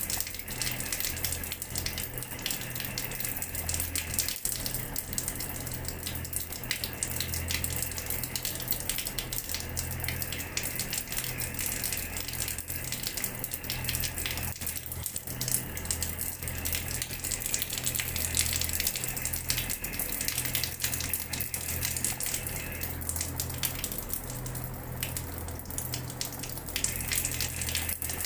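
Water running from a tap and splashing onto a hard floor, a steady spatter of many small splashes over a low, pulsing hum.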